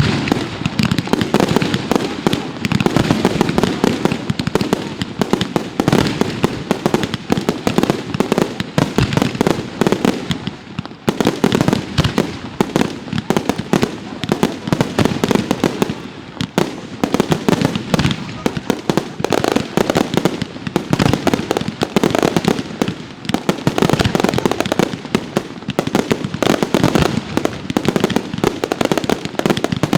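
A fireworks display firing a dense barrage of rapid bangs and crackle with hardly a gap. It eases briefly about a third of the way through, then carries on.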